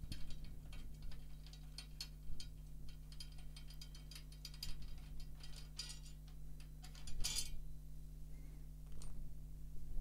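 Snare drum tension rods being unscrewed by hand, pulled out of their lugs and laid aside: irregular small metallic clicks and ticks, with a brief scrape about seven seconds in.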